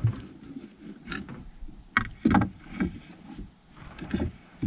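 Water slapping and knocking against the hull of a small drifting fishing boat, in a few irregular thumps, the loudest about two seconds in.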